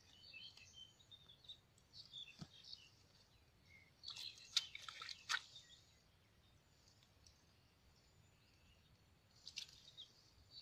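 Near silence, broken only by a few faint, scattered high-pitched rustles and chirps.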